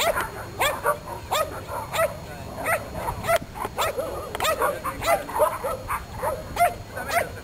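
A dog barking over and over, short high barks coming two to three a second without a break.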